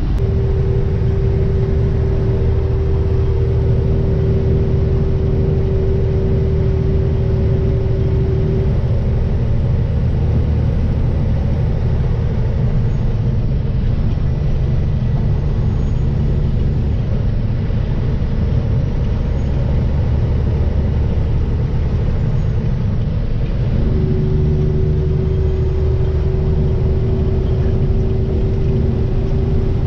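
Steady engine and road drone heard from inside a moving vehicle, deep and constant, with a steady mid-pitched hum for the first eight seconds or so that returns about twenty-four seconds in.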